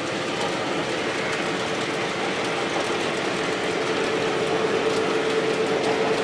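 Lionel O-scale model freight train running along three-rail track: a steady rolling rumble with a faint steady tone.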